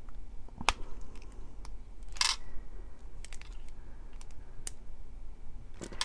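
Jewelry pliers and thin copper wire handled while wrapping a wire loop: scattered light clicks and taps, with a sharper click just under a second in and a short scratchy scrape about two seconds in.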